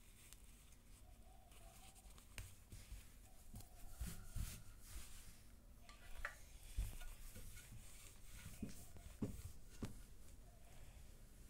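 Faint rustling and rubbing of folded cotton cloth being handled and smoothed by hand, with a few soft knocks as a clothes iron is set down and pressed onto it.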